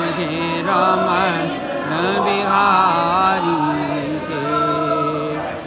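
A devotional Krishna bhajan sung in long, drawn-out notes that bend and waver, with music behind the voice.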